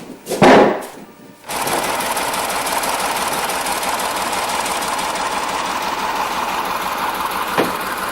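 A loud thump, then a steady mechanical running noise that starts abruptly and holds even.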